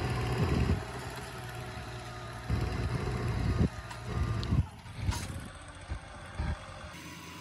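Tractor engine running steadily while pulling a disc plough through soil, with several bursts of low rumble over it.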